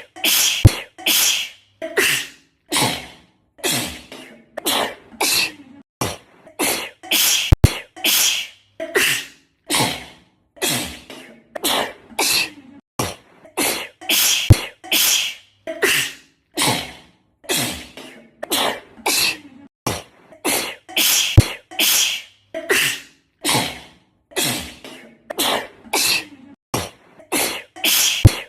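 A girl sneezing over and over in quick succession, a short burst about every second. A brief sharp click, the loudest sound, comes about every seven seconds as the edited loop repeats.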